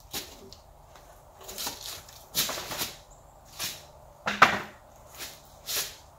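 Footsteps crunching and shuffling through dry fallen leaves while a heavy cherry slab is carried, with one sharp wooden knock a little over four seconds in as the slab is set against a sawhorse.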